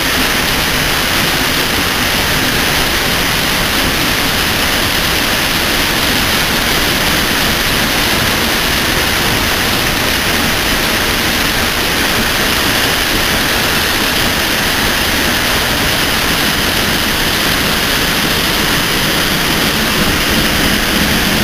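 Waterfall swollen by recent rains: a loud, steady rush of falling water.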